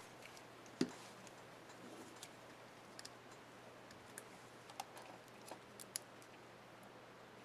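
Small, irregular plastic clicks and taps from handling the space bar keycap and its clips on an HP Stream 11 laptop keyboard, with one sharper click about a second in.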